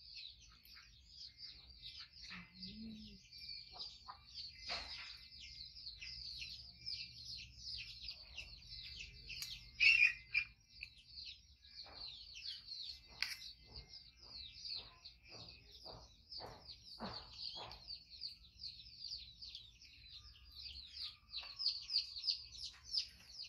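Small birds chirping continuously in quick, dense high notes, with scattered clicks and clinks of spoons against stainless steel bowls. The loudest clink comes about ten seconds in.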